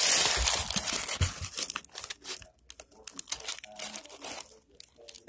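Loud crinkling and rustling right at the microphone for about two seconds, then scattered softer rustles and clicks as things are handled.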